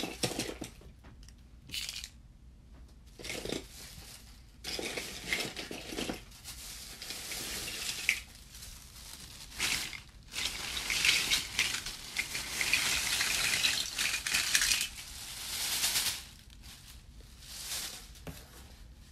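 Irregular rustling and crinkling of packaging, with small hard plastic pieces clicking and clattering as a heap of small plastic toy trains is handled; the busiest handling comes in the second half.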